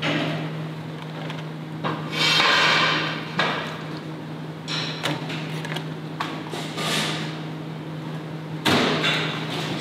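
Working noise of a slaughterhouse processing line: scattered metal knocks and clatter from stainless hooks, stands and bins over a steady machinery hum, with a louder rushing noise for about a second a couple of seconds in.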